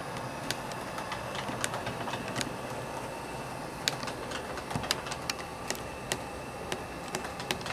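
H0 scale model trains running on the layout: a steady mechanical whirr with irregular clicks of the wheels passing over rail joints.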